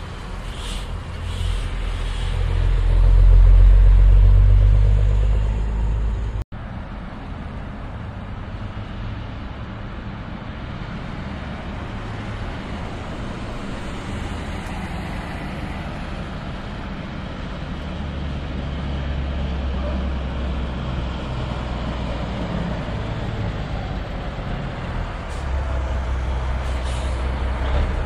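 Diesel semi-trucks rumbling as they pull through close by. One tractor-trailer passes loudest about three seconds in, then a steady lower engine rumble carries on and swells twice more. Brief hisses near the start and near the end.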